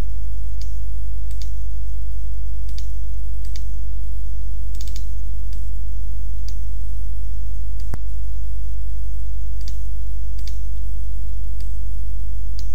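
Computer mouse clicking now and then, a dozen or so short irregular clicks with one sharper click about eight seconds in, over a loud steady low hum.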